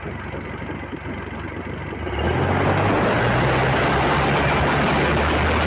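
Isuzu MU-X diesel engine idling, then revved and held at a higher speed about two seconds in, with a broad hissing rush over the engine note. This is a test with the dipstick pulled, spitting smoke and oil, which the mechanic says is normal and not a sign of blowby.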